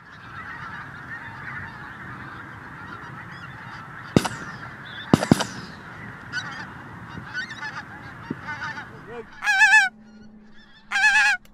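A flock of pink-footed geese calling overhead in a continuous overlapping chatter. Three shotgun shots ring out about four and five seconds in, and near the end two loud, close honks with a wavering pitch stand out.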